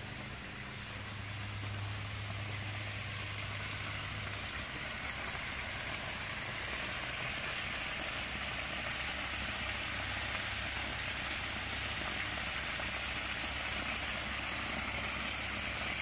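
Water pouring from a backyard waterfall spillway in a sheet onto gravel: a steady splashing hiss that grows louder over the first few seconds, with a steady low hum underneath.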